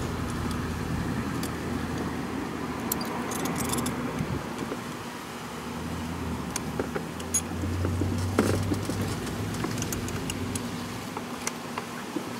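Scattered light metallic clinks of a wrench and locking pliers working the lock nut and adjuster screw of a GY6 150cc engine's valve, over a low steady hum.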